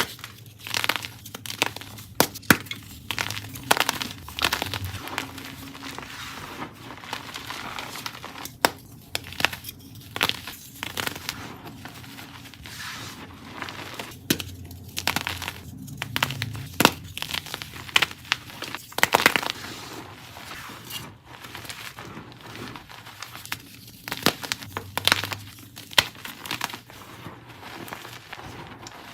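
Blocks of dyed BSN gym chalk being crushed and crumbled by hand close to the microphone. Irregular crisp crunches and snaps, some in quick clusters, over a steady dry, powdery crumbling rustle.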